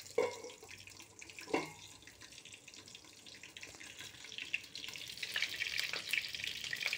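Stainless steel pan lid clinking twice against the pan, then stuffed eggplants frying in oil under it, the sizzle growing louder through the second half as the lid is lifted.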